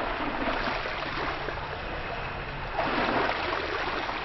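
Shallow seawater sloshing and lapping, a little louder about three seconds in.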